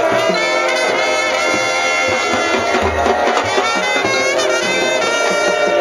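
High school marching band playing, the brass section holding loud sustained chords that shift as the music moves on, over drumline percussion.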